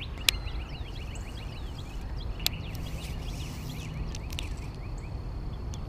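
Outdoor pond-bank ambience: a rapid, even series of small animal chirps over a steady low rumble, with a few sharp clicks from handling the baitcasting rod and reel.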